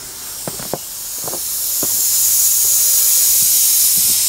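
Live steam hissing from a Mamod Double Fairlie model locomotive's cylinder, which has lost its end cap so steam escapes from the open end. The hiss grows louder over the first two seconds and then holds steady, with a few faint clicks in the first two seconds.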